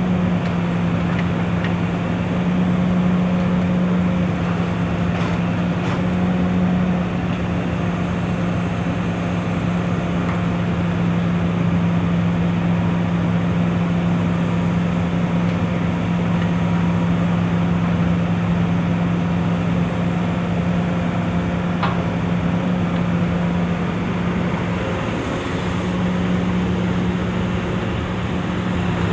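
Hitachi EX355 excavator's diesel engine running steadily at a constant speed, a steady low hum with a slight dip about 25 seconds in.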